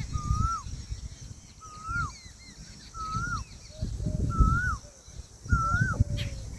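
Indian peahen calling: a clear whistled note that rises and then drops sharply, repeated five times about every second and a quarter. Low rumbling noise comes and goes underneath.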